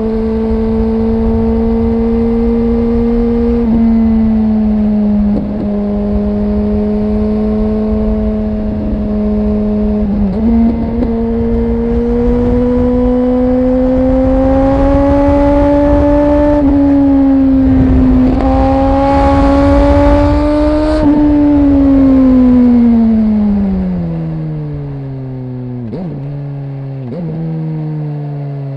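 Suzuki GSX-R 1000's inline-four engine under way, with wind rushing past. The note holds steady with short breaks at gear changes, then slowly climbs. In the last few seconds it falls away as the bike slows, with a couple of quick throttle blips on the downshifts.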